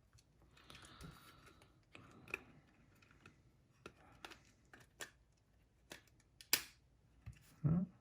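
Small sharp clicks and taps of parts and tools being handled while a cassette walkman is taken apart, with one louder click about six and a half seconds in and a duller knock near the end.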